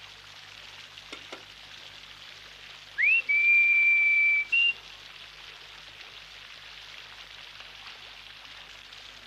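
A single whistle: it glides up, holds one high note for about a second and a half, then gives a short higher note. Behind it is a steady hiss of rain.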